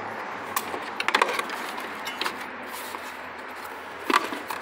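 Hard plastic parts clicking and knocking as a plastic cover piece is pressed and slotted into the car's battery box: a quick cluster of sharp clicks about a second in and a louder click near the end.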